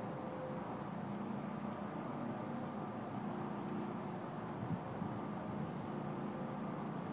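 Crickets chirping steadily in a continuous high pulsing trill, over a constant low hum.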